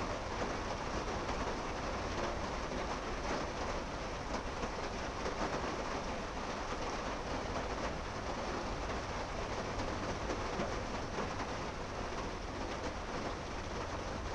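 Steady, even rushing noise with no distinct events, constant in level throughout.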